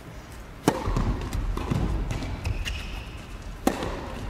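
Tennis rally: a serve struck sharply with a racket about a second in, fainter ball bounces, hits and footsteps on the court, then another sharp racket hit near the end.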